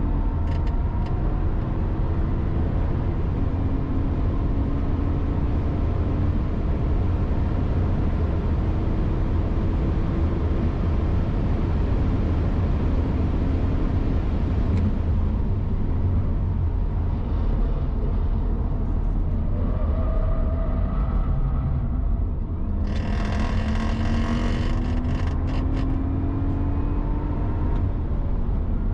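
Car engine at circuit speed, repeatedly rising in pitch as it accelerates and then dropping, over a heavy low rumble, with a few seconds of harsh hissing noise about three-quarters of the way through. This is acceleration out of corners, where the owner hears an abnormal noise that he has not identified.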